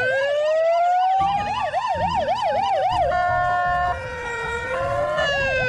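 Ambulance electronic siren sounding, cycling through its tones: a slow rising wail, then a quick up-and-down yelp of about four sweeps a second from about a second and a half in, a held steady tone around three seconds in, and the quick yelp again near the end.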